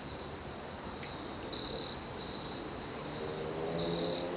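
Crickets trilling steadily in a high, continuous chorus, several overlapping at slightly different pitches.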